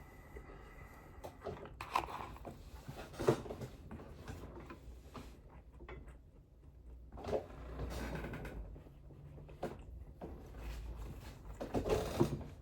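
Close-miked eating: chewing and handling food, heard as irregular short bursts of crackling and clicking.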